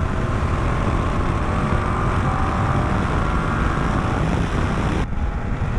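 Yamaha Tracer 700's 689 cc parallel-twin engine pulling hard under acceleration, its note rising over about four seconds, under a heavy rush of wind on the microphone. About five seconds in the sound drops abruptly to a duller rush.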